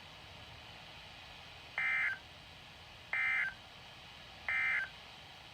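EAS SAME end-of-message signal on NOAA Weather Radio: three short bursts of high-pitched warbling data tone, about a second and a half apart, over faint receiver hiss, marking the end of the alert.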